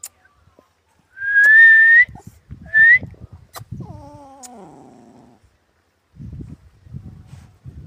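Injured puppy whimpering: a long thin high whine that rises at the end, a shorter rising whine, then a lower wavering cry that falls in pitch. Low rustling and handling noise in the grass follows.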